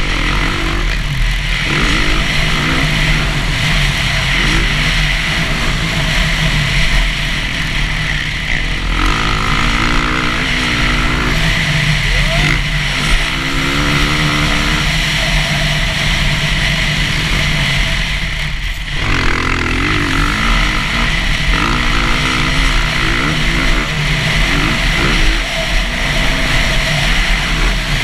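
Dirt bike engine revving up and falling back again and again as it is ridden hard around a motocross track, the note easing off briefly about two-thirds of the way through.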